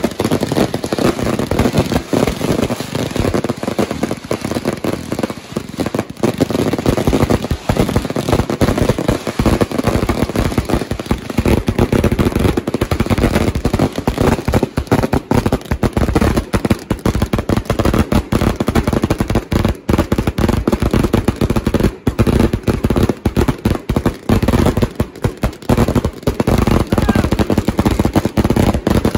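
Consumer firework cakes firing a dense, rapid barrage of bangs and crackle that goes on without a break.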